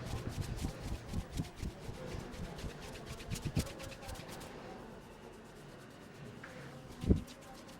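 Hands tapping and patting on a head and shoulders in a rapid, irregular run of soft thumps for about four seconds, then quieter rubbing, with a single sharp knock near the end that is the loudest sound.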